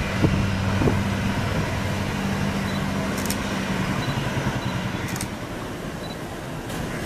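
Steady rumble and hiss of a Boeing 737-800's CFM56 jet engines at taxi power. Under it runs a low, steady engine hum from a road vehicle close by, which fades out about four to five seconds in.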